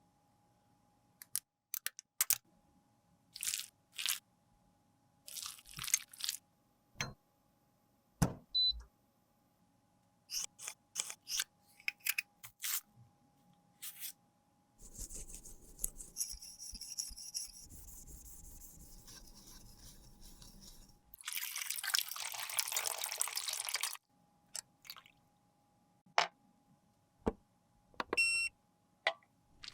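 Close-up handling sounds from makeup repair work: scattered sharp taps, clicks and scrapes of tools and cosmetic containers. A soft steady hiss runs for several seconds, then a louder rushing noise lasts about three seconds.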